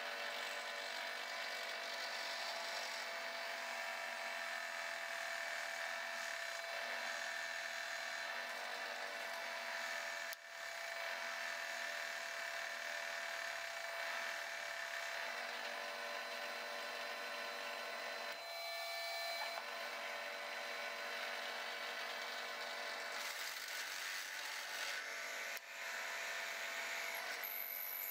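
Benchtop drill press running steadily, a step drill bit boring into a block of walnut. The sound breaks off briefly about ten seconds in and again around eighteen seconds.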